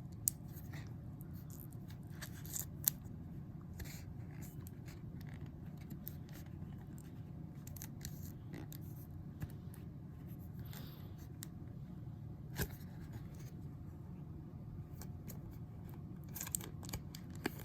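Faint scrapes and small plastic clicks as a thick trading card is worked into a rigid plastic top loader that is too tight for it, over a steady low hum. A few sharper ticks are scattered through, with a cluster of clicks near the end.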